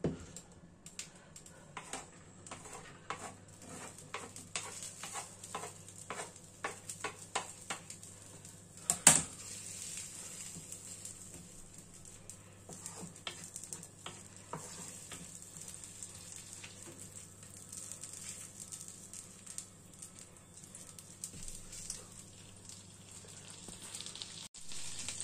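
Diced shallots sizzling in melted butter in a non-stick frying pan, stirred with a wooden spatula. A string of taps and knocks runs through the first several seconds, with one louder knock about nine seconds in, over a steady sizzle.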